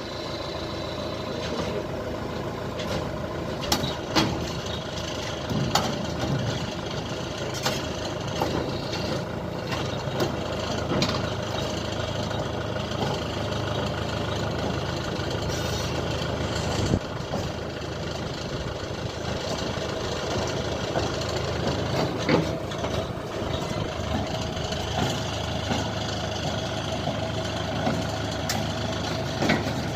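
Engine of a remote-controlled water-well drilling rig running steadily, with a scattering of short sharp knocks over it.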